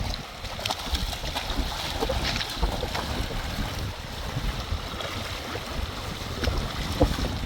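Wind buffeting the microphone over water: a steady low rumble, with scattered short knocks and splashes.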